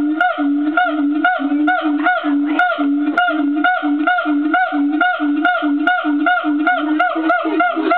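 Agile gibbon singing: a long run of repeated hooting notes, about two to three a second, in an even rhythm. Near the end the notes change and start to rise in pitch.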